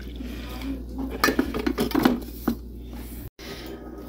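Hot coffee pouring from a coffee-maker carafe into a ceramic mug, followed about a second in by a run of clinks and knocks of crockery.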